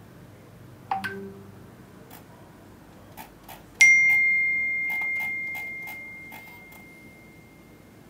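Smartphone notification chime: a single bell-like tone that strikes just under four seconds in and rings on, fading over about four seconds, as the phone's screen lights up. A brief, quieter ding about a second in and a run of faint clicks.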